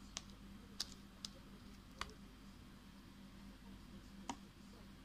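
Five faint, sharp clicks at uneven intervals over a low, steady hum.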